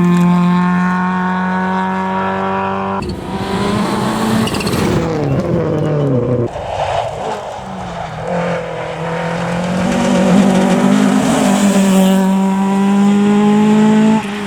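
Historic rally car engines at high revs on a stage, held flat out at first, then the pitch drops away as a car lifts off and changes down around the middle, before the revs build again and hold high until a sudden cut near the end.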